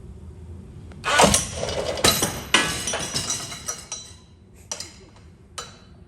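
A sudden metallic bang as the ratchet and its loading setup slip loose under tension, followed by about three seconds of metal clattering and clinking, then a few lighter clicks.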